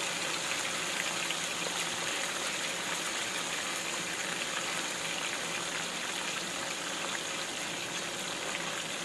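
Whole galunggong (round scad) shallow-frying in hot oil in a pan: a steady sizzle.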